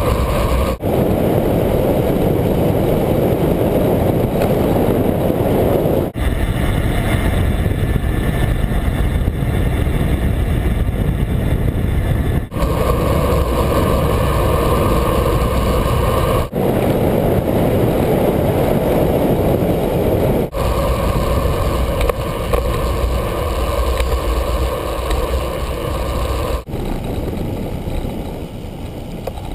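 Steady rushing wind and road noise from riding a bicycle on pavement, heard through a GoPro's mic. Its tone changes abruptly every few seconds.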